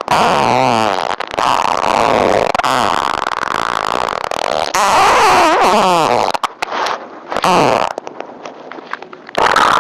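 Human farts edited one after another: long, loud, wavering blasts that cut off abruptly, then a few short sputters and a quieter stretch near the end.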